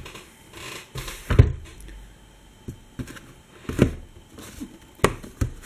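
Cardboard boxes being handled and set down on a wooden table: several separate knocks and thumps, the loudest about a second and a half in and a sharp click near the end, with faint rubbing of cardboard between.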